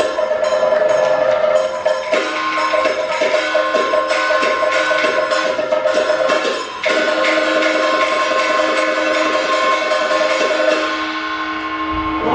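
Live Sichuan opera percussion accompaniment: fast, steady strokes on a small drum and wood-block-like clapper, with gong and cymbals, over a held melodic line from a pitched instrument.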